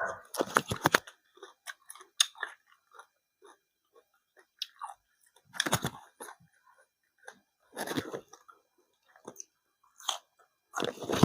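Close-miked chewing and crunching of food: clusters of crisp, wet crunches a few seconds apart, with quiet gaps between.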